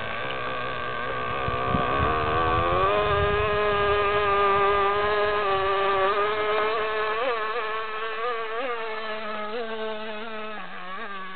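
Small two-stroke model glow engine (MVVS 6.5 cc) of a radio-controlled speedboat running at speed, a high-pitched whine. Its pitch climbs about two to three seconds in as the boat speeds up, then holds steady with brief jumps in pitch from about seven seconds on. A lower tone joins late and falls away near the end.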